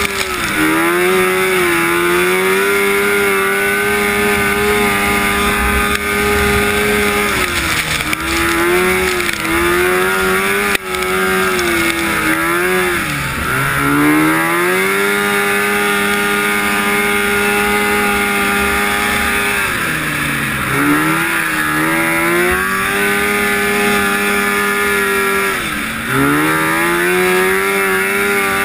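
1974 Rupp Nitro 340 snowmobile's two-stroke engine running at high revs under racing throttle. Its pitch dips and climbs back several times as the throttle is eased and reopened.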